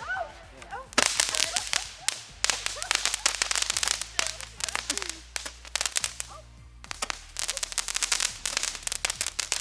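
Small consumer firework crackling: rapid sharp pops in dense spells, easing off a little in the middle before picking up again.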